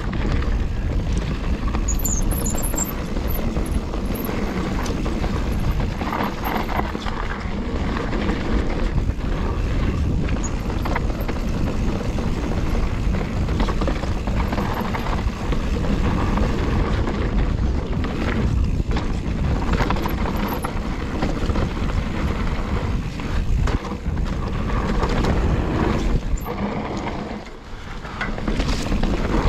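Mountain bike riding down a dirt trail, heard from a camera on the bike or rider: a steady rush of wind on the microphone with tyre rumble and the rattle of the bike over rough ground, easing briefly near the end.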